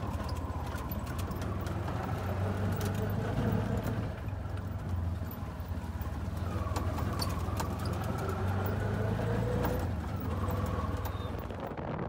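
Engine of a four-stroke auto-rickshaw (a three-wheeled CNG taxi) running steadily, heard from inside its open cab, with frequent knocks and rattles from the body as it rides over a rough dirt road.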